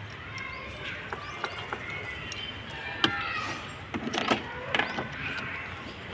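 Scattered clicks and light knocks of plastic bumper trim and metal parts being handled with a screwdriver, with a few sharper knocks about halfway through and again near the end.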